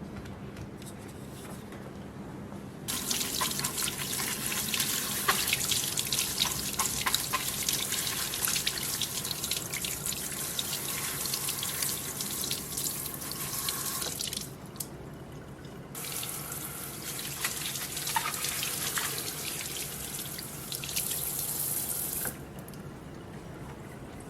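Water running in a steady stream, in two stretches: about eleven seconds, a short break, then about six seconds more.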